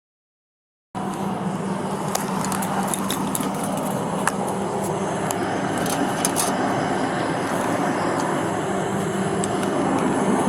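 Silent for about the first second, then a steady low hum of a running vehicle with scattered small clicks and rustles.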